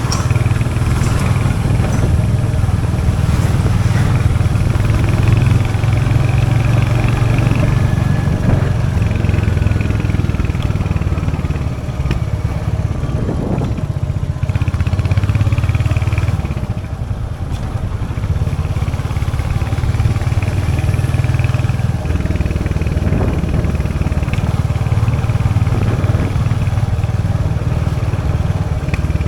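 Royal Enfield Hunter 350's 349cc single-cylinder J-series engine running, its exhaust note steady, easing off briefly twice in the middle.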